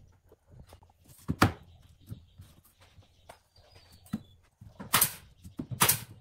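Irregular knocks and clicks: a sharp knock about a second and a half in, and two louder knocks near the end.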